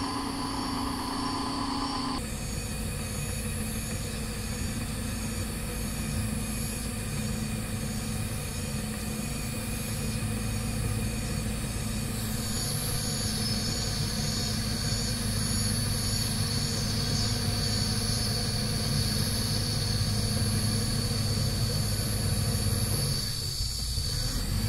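CAT D7R crawler dozer's diesel engine running steadily as the machine crawls toward the listener, growing a little louder as it nears, with a steady high-pitched whine over it.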